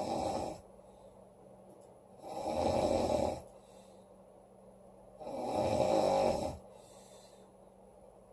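A woman snoring loudly, in slow regular breaths: the end of one snore right at the start, then two long snores about three seconds apart, each swelling and fading over a second or so.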